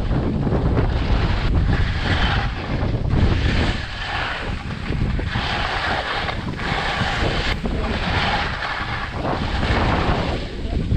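Wind noise buffeting the microphone while skiing fast down a steep snow slope, with skis scraping and hissing through the snow in repeated swishes, about one turn every second or so.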